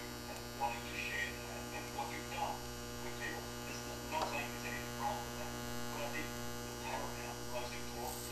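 TIG welding arc and welder humming steadily while a bushing is welded to a 1/4-inch steel bracket.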